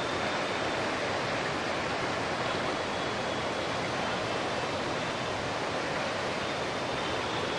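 Swollen river in flood, fast brown water rushing past in a steady, unbroken rush.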